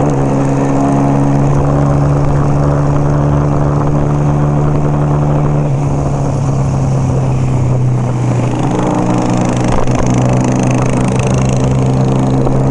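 Motorcycle engine running at a steady cruising speed, its pitch holding even, with wind rushing past the microphone.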